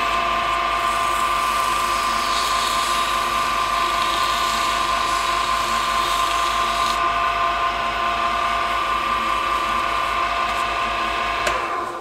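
Wood lathe running with a steady whine while wet 800-grit sandpaper is held against the spinning deer-antler pen blank, hissing as it flattens the super glue finish for the first several seconds. The lathe sound cuts off suddenly just before the end.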